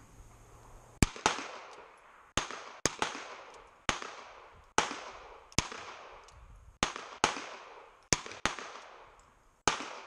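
Revolver fire on a shooting line: the Colt Python in the shooter's hands and other shooters' handguns going off together. About a dozen sharp shots in ten seconds, unevenly spaced and some fainter than others, each trailing off in an echo.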